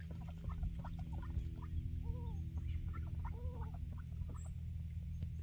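Poultry calling: many short soft clucks and chatter, with two longer rising-and-falling calls about two and three and a half seconds in. A steady low hum runs underneath.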